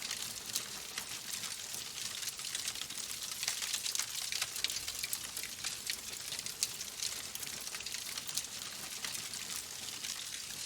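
Wood logs burning in a fireplace: dense, irregular crackling with many small pops over a steady hiss.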